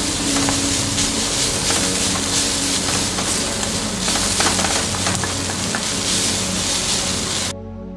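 Sliced onions and whole spices sizzling in hot oil in a metal kadai, with a wooden spatula scraping and knocking against the pan as they are stirred. The sizzle cuts off suddenly near the end, leaving soft music.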